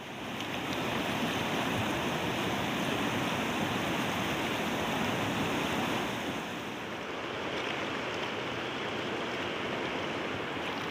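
Fast-flowing mountain river rushing through rapids, a steady rush of water that fades in over the first second.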